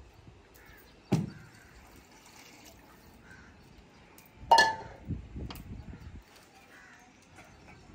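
Metal kitchen utensils clinking: a sharp knock about a second in, then a louder, ringing metallic clank about four and a half seconds in.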